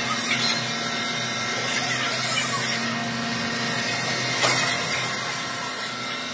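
Steady hum of running workshop machinery, with light rubbing and handling knocks as a steel fork tube is wiped with a rag and moved; a louder knock comes about four and a half seconds in.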